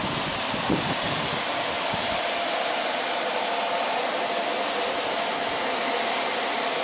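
Steady rushing noise of a running fan, with a faint even hum in it.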